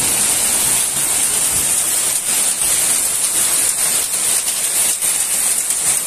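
Heavy rain mixed with hail: a steady, dense hiss with many small ticks of hailstones striking surfaces.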